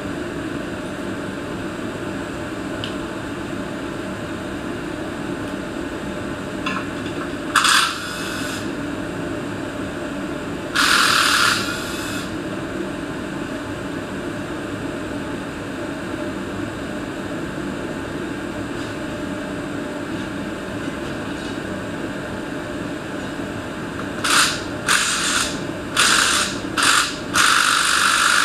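A handheld power tool spinning fasteners in short bursts during an engine teardown: one brief burst about eight seconds in, a run of about a second a few seconds later, then a quick string of five or six bursts near the end. A steady hum runs underneath.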